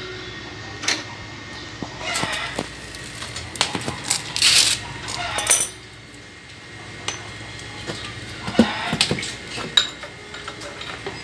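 Small metallic clinks and clicks from a wrench working loose a scooter's front axle nut, with a couple of short rasps of metal about four to five seconds in.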